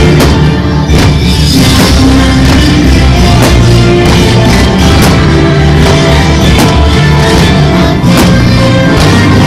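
Loud music with sustained notes and a regular drum beat, steady in level throughout.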